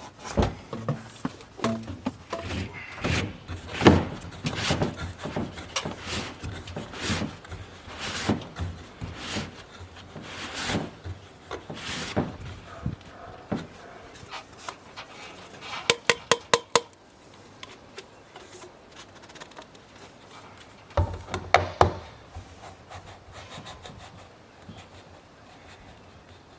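Irregular knocks, taps and thuds of timber and tools being worked, with a quick run of about six sharp taps a little past halfway and another short cluster of knocks later, then quieter.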